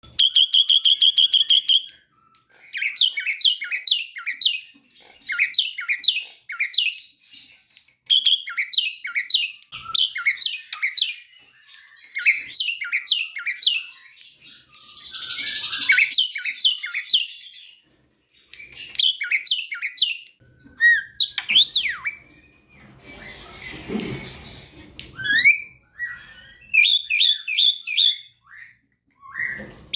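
Javan myna singing loudly: a held high whistle, then fast runs of short down-slurred chattering notes in quick bursts, broken by a few harsh, noisy stretches.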